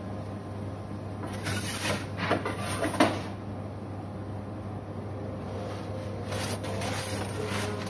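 Metal pizza peel scraping and knocking against the oven's stone floor and ledge as a pizza is slid out, with one sharp knock about three seconds in and lighter scrapes near the end. A steady low electrical hum runs underneath.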